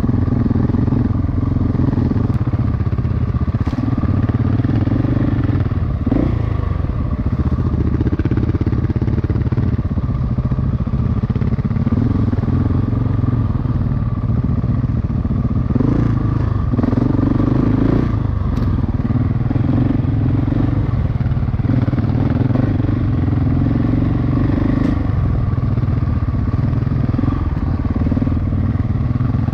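Single-cylinder dual-sport motorcycle engine running under way, with the engine note shifting briefly a few times as the throttle changes.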